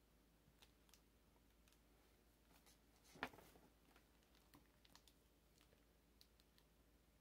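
Near silence: quiet room tone with faint scattered small clicks and one louder sharp tap about three seconds in.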